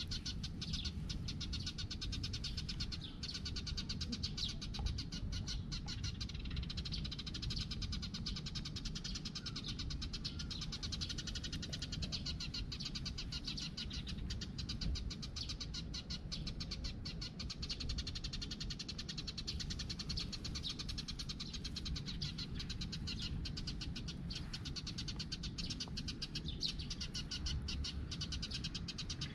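A tabby cat being stroked, with a low steady rumble close by and a dense, steady high-pitched chirping behind it.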